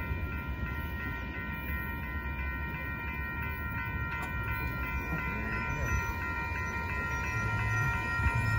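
Railroad crossing bell ringing steadily, over the low rumble of a Union Pacific freight train's cars rolling past the crossing.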